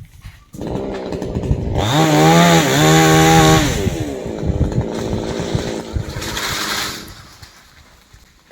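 Chainsaw coming in about half a second in and revved up to a high steady pitch for a second and a half, then dropping back, running lower and fading out near the end.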